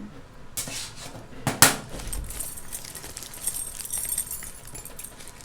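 Loose costume jewelry (chains, bangles, earrings) clinking and jangling as pieces are picked through and handled, with one sharper clack about a second and a half in.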